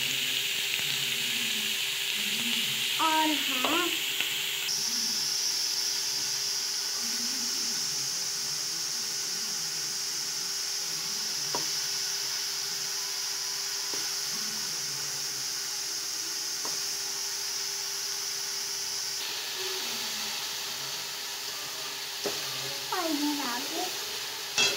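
Chopped onion and spices sizzling steadily in hot oil in a metal kadai on a gas stove, with a few faint clicks.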